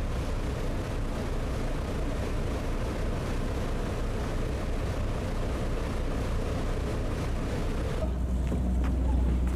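Boat engine running steadily, with water rushing along the hull, as the boat moves through the harbour. About eight seconds in this gives way abruptly to a louder, deeper low rumble.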